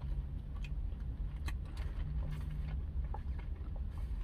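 Quiet sipping through a straw from a foam cup, with a few faint clicks, over a steady low hum inside a car cabin.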